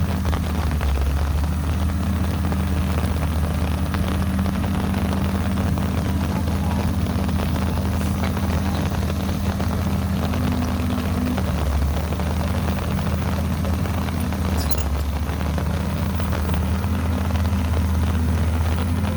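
Caterpillar 312B excavator's diesel engine running steadily, a low even drone with no change in pace.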